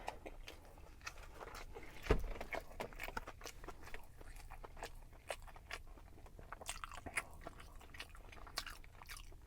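Faint chewing of a mouthful of Big Mac, many small irregular mouth clicks, with one louder low thump about two seconds in.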